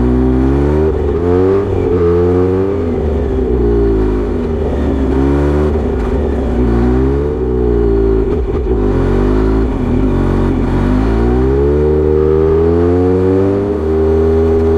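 Kawasaki Z900RS inline-four through a Misty Kintaro short-pipe exhaust with a 70 mm silencer, ridden on a winding road. The engine note rises and falls again and again as the throttle is opened and closed. Near the end it climbs in one long rise and holds steady.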